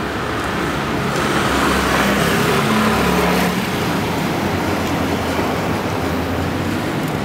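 Road traffic noise, with a motor vehicle passing close by: its engine rumble swells between about one and three and a half seconds in, then falls away.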